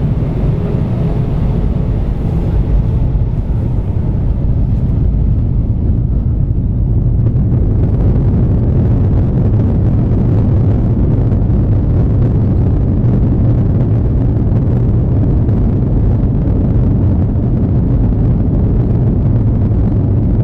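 Airbus A321 jet engines at takeoff thrust, heard from inside the economy cabin: a loud, steady, deep roar, with a faint rising whine in the first few seconds as the engines spool up.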